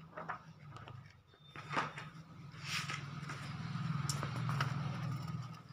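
Paper and small objects being handled: brief rustles and light knocks. Under them a low hum swells through the second half and eases near the end.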